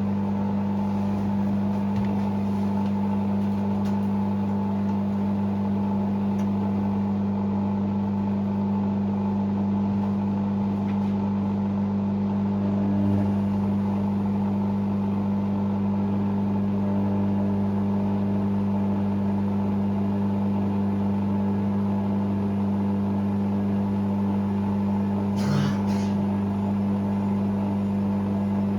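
Hoover Sportswear 1300 washing machine running on its fast spin programme: a steady, even hum that holds one pitch with no rise or fall.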